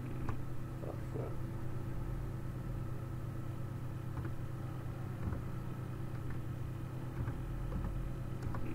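Steady low hum with a few light, scattered keyboard clicks as a password is typed at a terminal.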